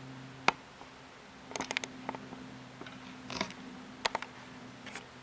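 Camera handling noise: one sharp click about half a second in, then scattered clusters of small clicks and ticks over a faint steady hum.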